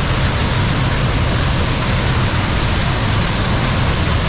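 Steady, loud rush of a small waterfall pouring down a rock chute and churning white water into the pool, close to the microphone.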